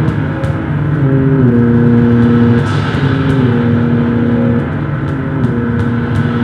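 Live electronic noise music from modular synthesizers and electronics: a dense, loud low drone, with a few held synth tones that step to new pitches every second or so from about a second in.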